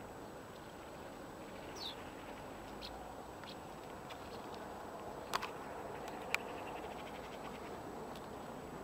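Outdoor ambience: a steady distant hum with a few faint bird chirps, two sharp clicks about five and six seconds in, and a faint rapid chirring near the end.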